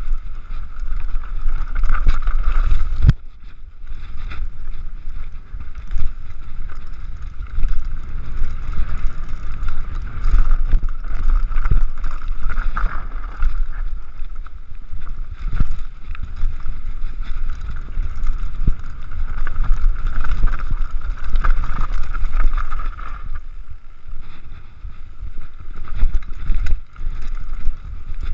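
Mountain bike rolling fast down a rocky singletrack, heard from a camera on the bike or rider: wind buffeting the microphone, tyres crunching over gravel and stones, and the bike rattling with frequent sharp knocks as it hits rocks.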